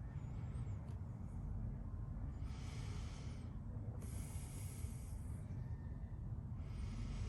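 A person breathing close to the microphone, with three soft hissy breaths about every two seconds, over a low steady rumble.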